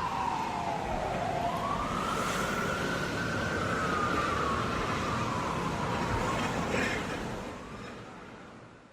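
Ambulance siren wailing in a slow rise and fall: one pitch slides down, climbs back up, then sinks again over steady background noise. It fades out over the last two seconds or so.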